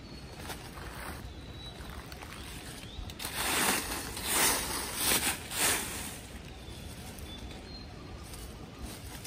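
Dry leaf litter rustling and crunching in about four short surges, from a hand scraping and pushing through dead leaves on the ground.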